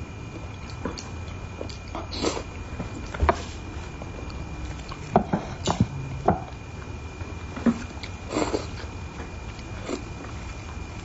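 Close-miked eating sounds of a woman eating spicy braised carp: scattered wet mouth smacks and clicks as she bites and chews the fish, a few to a second at most, with a faint steady high tone behind.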